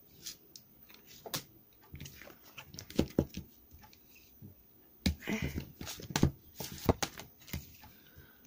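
A souvenir ticket card being handled and turned over in its folder: irregular rustles, taps and clicks, busiest around three seconds in and again between five and seven and a half seconds in.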